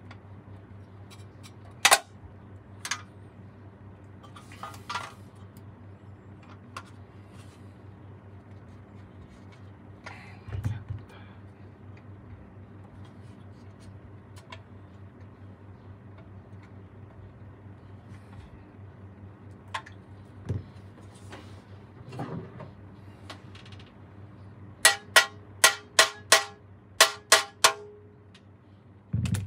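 Saxophone repair bench work: scattered clicks and knocks of tools on the instrument over a steady low hum. Near the end comes a quick run of about seven sharp taps with a short metallic ring.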